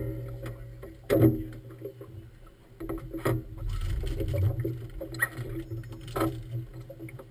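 A few hollow knocks, each with a short ring, about a second, three seconds and six seconds in, over a low steady hum: a moored boat being handled and bumping at a dock.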